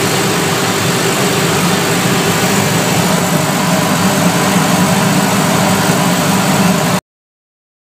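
MIDAS 300 dry separation table running with a steady mechanical drone and hiss as its deck works copper cable granules. The sound cuts off suddenly about seven seconds in.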